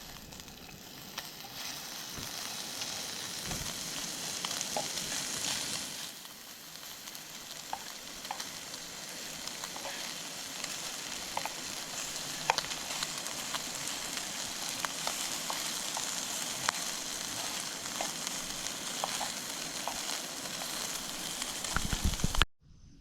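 Food frying in a pan: a steady sizzle with scattered small pops.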